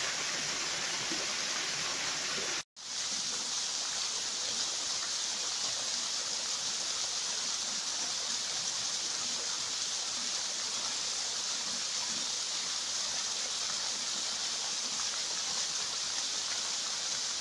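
Small waterfall splashing over rocks into a pool: a steady rushing of falling water, broken by a split-second gap about three seconds in.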